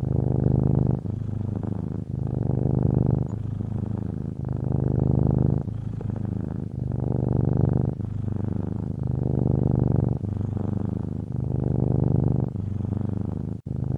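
Domestic cat purring steadily, swelling and easing with each breath in and out, about one cycle every two seconds.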